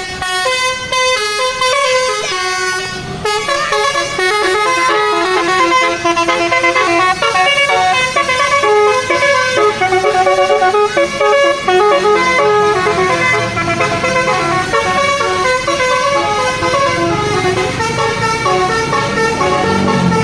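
Bus 'telolet basuri' horn playing a tune: a long run of short and held horn notes stepping up and down in pitch.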